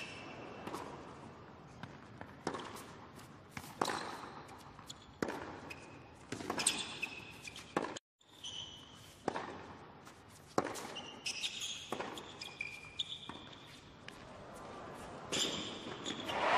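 Tennis rally on a hard court: regular racket strikes on the ball with ball bounces, roughly one hit every second and a half, with sneakers squeaking on the court between shots. The sound cuts out for a moment about halfway through.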